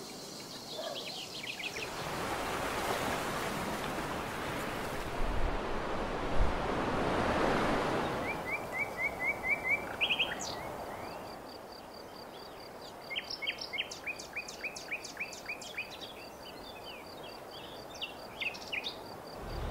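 Outdoor nature ambience: a rushing noise swells and fades, with two low bumps about midway. Then small birds chirp in quick repeated phrases, over a fast high trill that runs through the second half.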